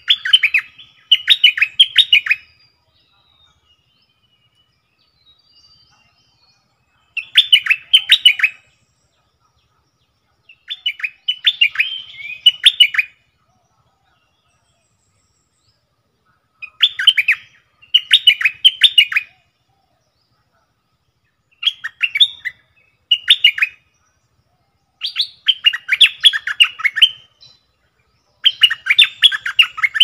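A bulbul singing short bubbly whistled phrases, often doubled, repeated about every three to four seconds with silent pauses between.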